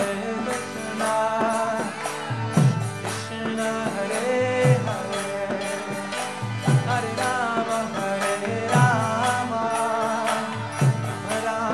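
Kirtan: a man singing a devotional chant over a sustained harmonium drone, with jingling percussion and deep mridanga drum strokes that drop in pitch about every two seconds.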